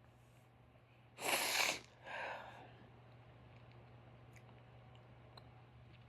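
A woman sneezes once, a loud, sudden sneeze about a second in, followed right after by a shorter, quieter sound of breath.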